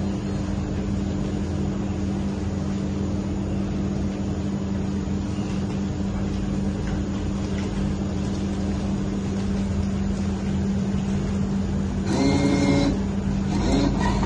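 Steady electric machine hum with a constant low tone from a sugarcane juice vending machine. A short pitched sound rises above it about twelve seconds in, and again briefly near the end.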